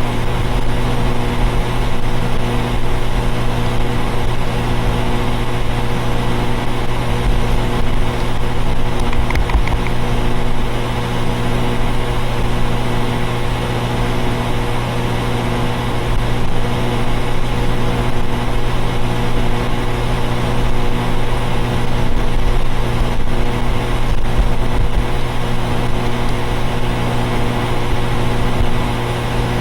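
Central air conditioner outdoor condenser units running: a loud, steady mechanical hum with a strong low drone that holds unchanged throughout.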